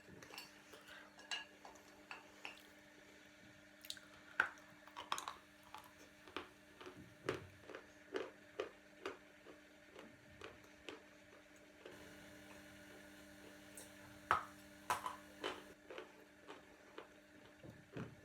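Close-up chewing of dry edible chalk: short, irregular crisp crunches and clicks, several a second at times, over a faint steady hum.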